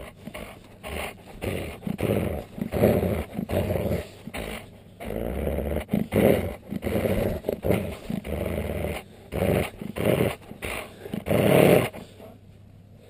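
A husky, alsatian and Alaskan malamute cross dog growling in repeated rough bursts while tugging on a furry toy. The growls stop about a second before the end.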